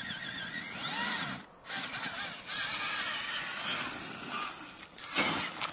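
Traxxas Summit 1/10 RC monster truck's electric motor and drivetrain whining, the pitch rising and falling with the throttle. The sound cuts out briefly about a second and a half in.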